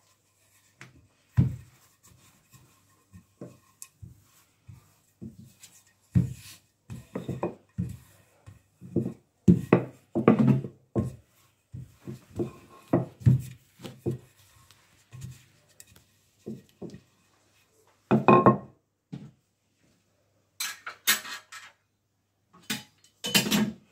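Wooden rolling pin rolling out pastry dough on a floured granite countertop: a string of short, irregular strokes and knocks of the pin against the stone, with a few sharp clicks near the end.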